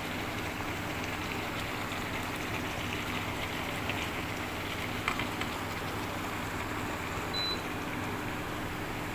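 Food frying in a pan, a steady sizzle with fine crackling, over a low steady hum; a light knock about five seconds in.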